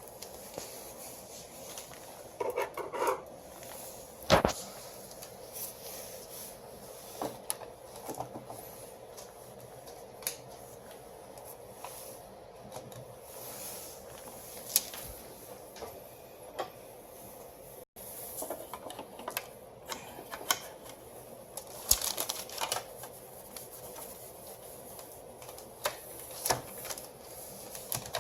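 Irregular clicks and knocks of small plastic and metal parts being handled, as copier fuser-unit parts are fitted and assembled by hand.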